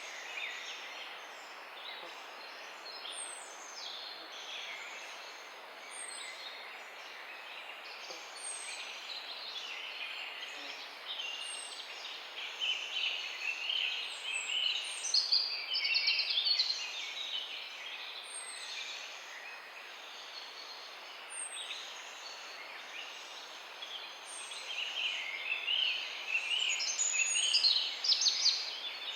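Morning birdsong: several birds chirping and trilling over a steady background hiss, with one high, thin falling note repeating about every three seconds. The song grows louder in bursts about halfway through and again near the end.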